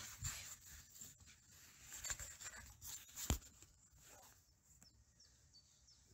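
Scratchy rustling and handling noise close to the microphone, with a sharp knock a little over three seconds in. Faint bird chirps follow near the end.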